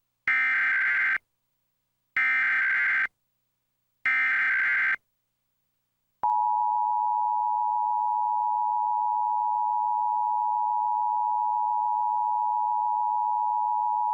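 Emergency Alert System tones announcing a Required Monthly Test. First come three bursts of SAME header data tones, about a second each with short gaps between them. Then the EAS attention signal sounds: a steady two-tone alarm held for about eight seconds that cuts off abruptly.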